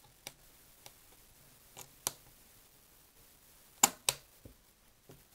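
Light clicks and taps from the metal levers and wheels of a 1970 Sony TC-120 cassette recorder's opened tape transport being moved by hand. A few faint ticks are followed by two sharper clicks close together about four seconds in.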